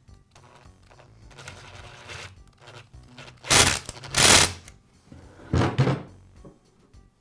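Handling noise from a gas string trimmer being reassembled: light rubbing and rattling, then three short plastic-and-metal knocks, two close together midway and one more shortly after, as the shaft housing is fitted and the trimmer is set upright on the bench.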